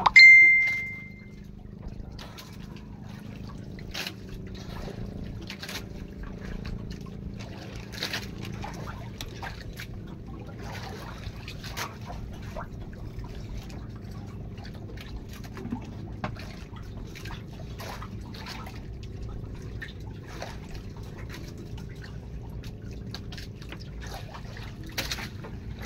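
Sea water lapping and trickling against the hull of a wooden outrigger boat, with scattered small knocks and a steady low hum underneath. A single sharp ringing ding opens the sound and fades within about a second.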